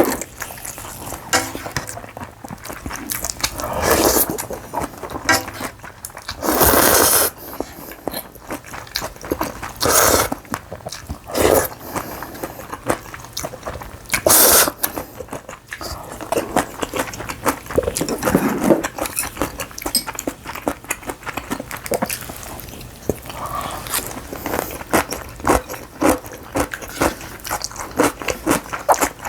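Close-miked eating of noodles and kimchi: steady chewing and small clicks, with several loud noisy bursts about a second long.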